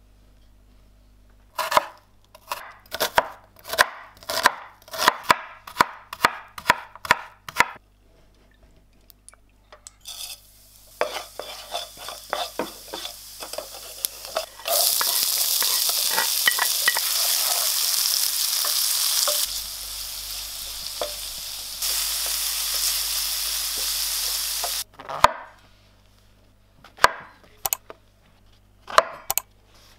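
A knife chopping on a cutting board in a run of sharp strokes, about two a second. Then whole cumin seeds frying in hot oil in a pan: a crackle that builds and then turns abruptly into a loud, steady sizzle for about ten seconds. A few more chopping strokes on a wooden board near the end.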